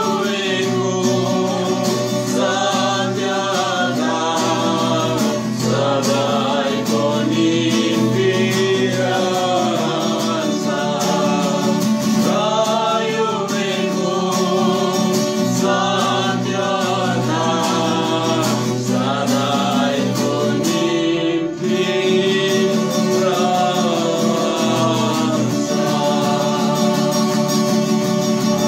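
A worship song sung by a man and a woman to a strummed acoustic guitar.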